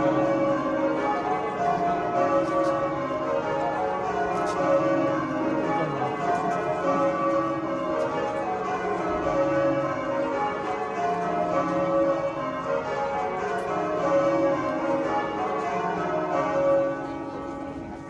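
Canterbury Cathedral's church bells being change rung: a continuous peal of overlapping bell strikes in shifting order, which fades near the end.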